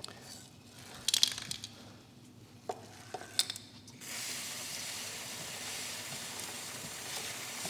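A few light clicks and knocks, then about halfway through an aerosol can of motorcycle chain lube starts spraying: a steady hiss.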